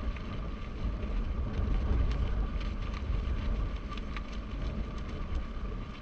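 Wind buffeting the microphone: a steady, unbroken low rumble with faint scattered clicks and a thin steady tone over it.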